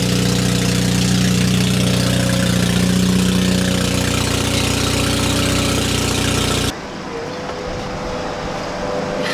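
Subaru turbocharged flat-four engine idling steadily. About seven seconds in, the sound cuts off abruptly to a quieter, rougher running noise.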